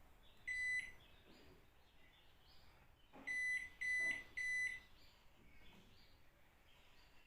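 Electronic control-panel beeps from a Hisense washing machine: one short beep about half a second in, then three short beeps in quick succession about three seconds later.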